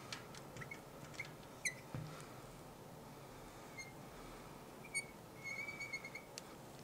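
Marker squeaking faintly on a glass lightboard: short chirps as letters are written, then a longer steady squeak near the end as a line is drawn.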